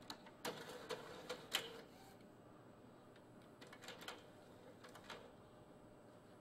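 Epson Artisan 700 inkjet printer's mechanism working in short bursts: a cluster of clicks with a brief motor tone about half a second to two seconds in, then fainter clicks around four and five seconds in.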